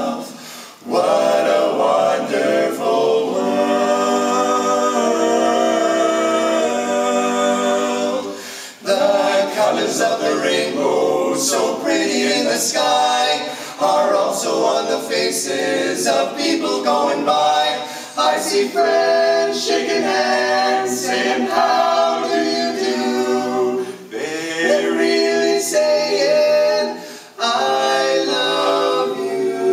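Male vocal quartet singing a cappella in close four-part harmony, with long held chords and brief breaks between phrases.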